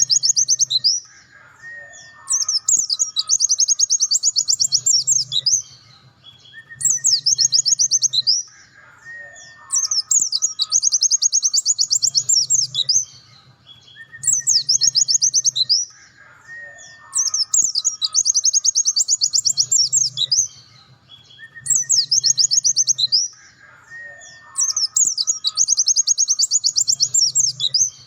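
Pleci dakun white-eye singing its fast 'nembak' song: bursts of rapid, high chattering trills two to three seconds long, with softer short whistles between them. The same phrase pattern repeats about every seven to eight seconds, as a looped training recording.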